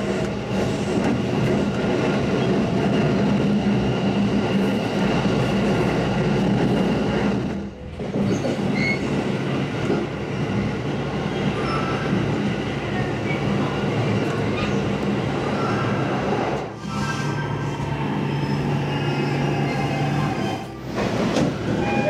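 Electric commuter train running, heard from inside the carriage: a steady rumble of wheels on rails under the steady hum of the motors. The sound dips briefly three times.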